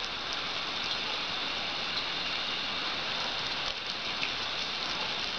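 Water from a hose spraying in a steady hiss and splashing onto the grass.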